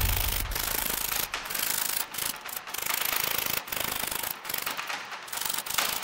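Jeweler's saw cutting nickel silver sheet held on a wooden bench pin: a rasping of the fine blade's strokes through the metal, broken by short pauses every second or so.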